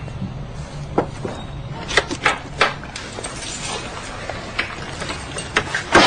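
Household clatter: a string of separate sharp knocks and clinks, ending in the loudest crash.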